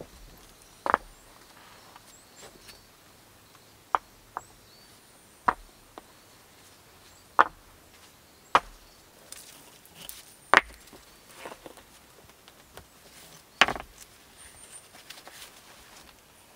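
Sharp, hard knocks, about eight of them, spaced irregularly, from hand work at a stone-ringed hearth.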